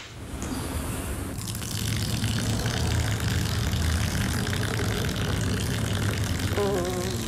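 A man urinating: a steady splashing stream, with a long low fart underneath it.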